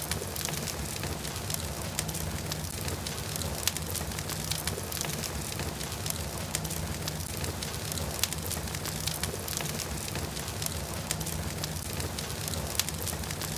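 Fire crackling steadily: a dense run of small, sharp pops over a constant hiss, with a faint low hum underneath.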